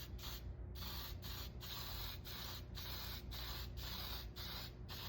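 Mohawk toner aerosol spray can hissing in a rapid series of short bursts, about two to three a second, as medium dark toner is misted onto wood to darken it.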